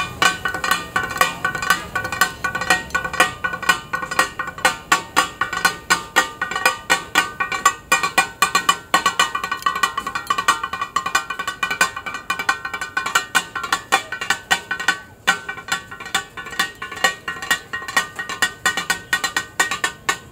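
Two flat metal spatulas clacking and chopping rhythmically on a tawa griddle, about three to four ringing metal strikes a second, over the sizzle of masala.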